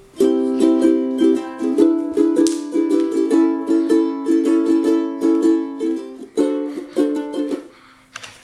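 Collings UT-1 mahogany tenor ukulele with Aquila strings being played in chords with quick, even strokes. The playing stops near the end, leaving one note ringing briefly.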